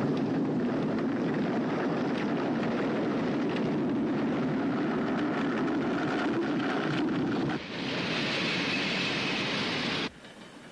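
Avalanche sound effect on a film soundtrack: a loud, continuous rushing noise of snow sliding down a mountainside. Near the end it shifts to a higher hiss, then cuts off suddenly.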